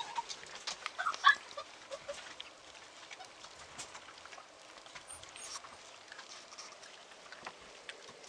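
Several Border Collie puppies eating dry kibble from a shallow metal bowl: soft crunching and small clicks of kibble and bowl, with a few louder clicks about a second in.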